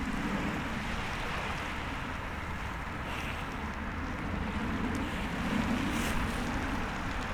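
Steady rumble of wind on the microphone and surf on the shore, swelling and easing slowly, with a faint crackle about six seconds in.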